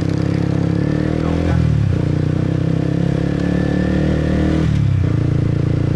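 Motorcycle engine accelerating, its pitch climbing and then dropping sharply twice, about a second and a half in and again near five seconds in, as the rider shifts up through the gears.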